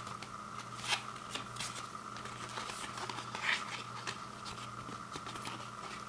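Frozen pizza packaging handled by hand: irregular rustling and clicking, with a sharper click about a second in and another near the middle, over a steady hum.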